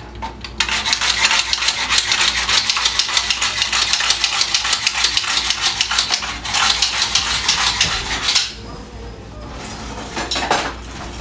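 Kitchen knife being sharpened: quick back-and-forth metal scraping strokes, several a second, which stop about eight seconds in.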